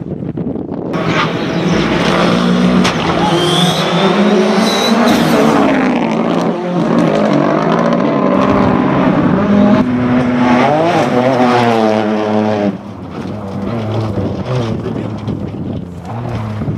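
Rally car engine at full throttle, its pitch rising and falling again and again as it revs through the gears. About 13 seconds in it gives way to a quieter engine sound.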